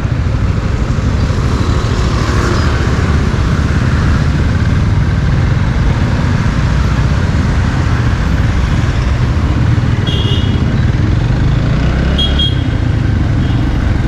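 A motorcycle engine running steadily with a low-pitched exhaust note, its silencer modified with the baffle removed. Two short, high chirps come through, about ten and twelve seconds in.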